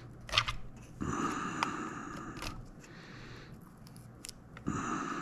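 Hands working on plastic joystick parts: scraping and rasping with a few sharp clicks, the loudest a snap about half a second in.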